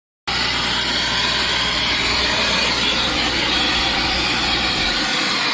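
Steady, loud rush of air from car-detailing cleaning equipment, hissing strongly in the high end. It starts abruptly, and a low hum under it drops away near the end.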